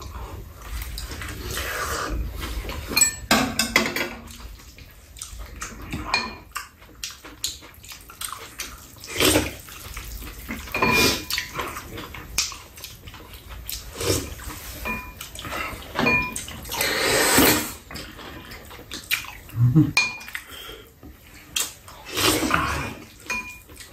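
Two people eating stir-fried glass noodles: repeated slurping and chewing, with chopsticks clicking and clinking against a metal pan and bowls.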